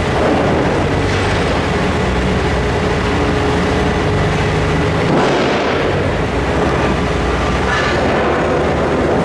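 Liebherr R9200 mining excavator's big diesel engine running, a loud steady rumble with a faint hum in it.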